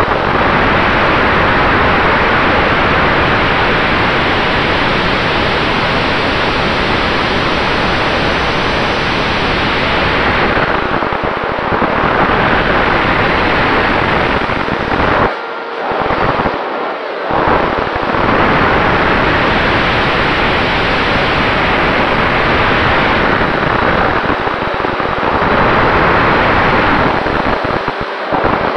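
Loud rush of wind over the onboard camera's microphone on an RC flying wing in flight, with a faint steady whine from its Sunnysky 2212 brushless motor and propeller underneath. The rush drops away briefly a couple of times past the halfway point and again near the end.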